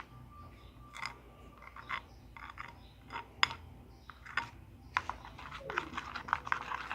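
A spoon stirring a glue and baking soda slime mixture in a bowl: scattered sticky clicks and scrapes, coming faster from about five seconds in.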